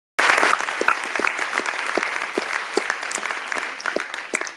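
Audience applauding: many hands clapping together, starting suddenly and thinning to a few last claps near the end.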